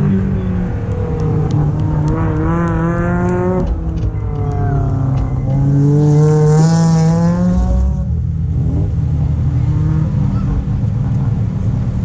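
Rallycross car's engine under hard driving, its revs climbing and dropping several times as it shifts. A hiss of tyre or gravel noise swells a little past halfway, then the engine settles into a lower, steadier note about eight seconds in.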